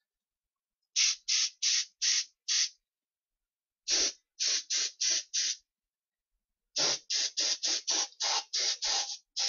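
Games Workshop spray gun spraying black primer in short bursts, about three a second: five bursts, a pause, five more, then a faster, longer run.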